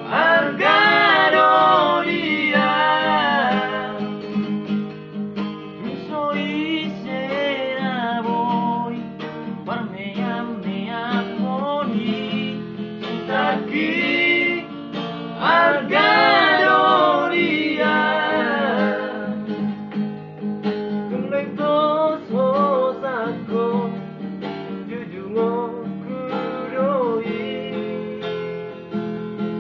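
Men singing a song to a strummed acoustic guitar, the voices holding long, gliding notes over steady chords.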